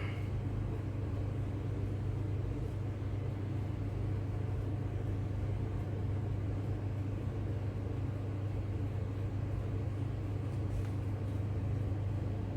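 Fan oven running with a steady low hum while a pizza bakes.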